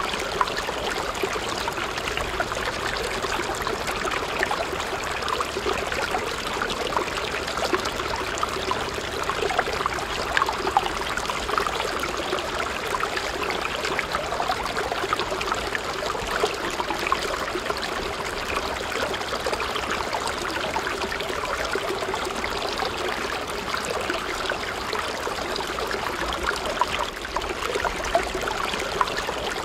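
A thin stream of water pouring steadily from a miniature homemade electric water pump's outlet tube into a shallow pool, a continuous trickling splash over a faint steady hum.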